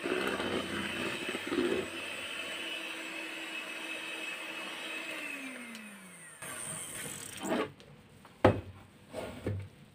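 Electric hand mixer beating butter and sugar, running steadily, then switched off about five seconds in, its pitch falling as the motor winds down. A few short knocks follow near the end.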